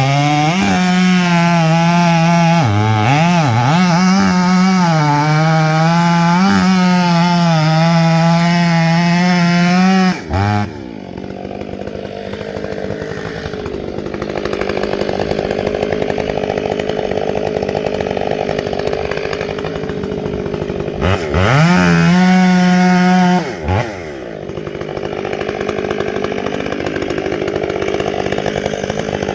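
A two-stroke Stihl chainsaw runs at full throttle, its pitch dipping and recovering under cutting load. About ten seconds in it drops to idle, revs up briefly around two-thirds of the way through, and settles back to idle.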